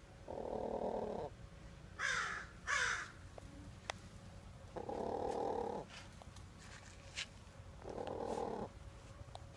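Hen giving low, buzzy calls about a second long, three times, with two loud harsh crow caws about two seconds in.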